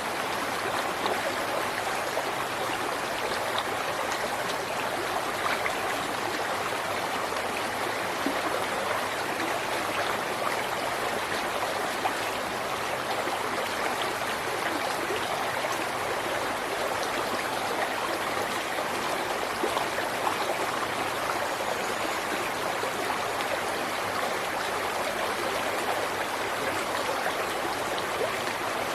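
A river or stream flowing steadily over rocks, a continuous rushing with small splashes and gurgles scattered through it.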